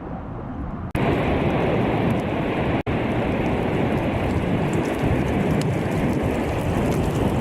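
Continuous loud rumble of the Cumbre Vieja volcanic eruption. It breaks off abruptly about one second in and again about three seconds in as the footage cuts.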